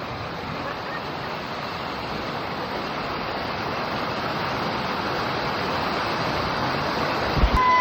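Rushing water from a waterfall and river, a steady noise that grows slowly louder, with a short low thump near the end.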